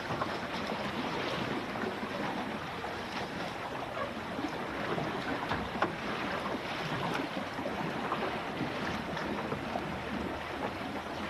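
Water rushing and splashing along the hull of a Finn dinghy under sail, with small irregular slaps of water against the boat and some wind on the microphone.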